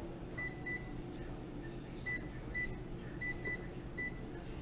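Sharp microwave oven keypad beeping as buttons are pressed: seven short, high beeps at irregular intervals, some in quick pairs, over a low steady hum.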